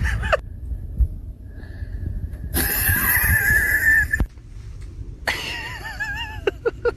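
A dog vocalising in protest: a loud, raspy scream for about a second and a half, then a wavering, warbling whine a second later.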